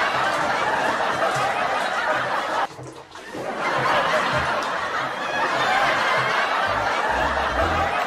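Laughter from a group of people, dense and continuous, breaking off for a moment about three seconds in and then picking up again.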